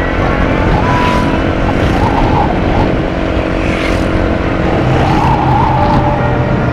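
Loud, steady riding noise from a moving motorcycle: wind rushing over the microphone with the engine running underneath.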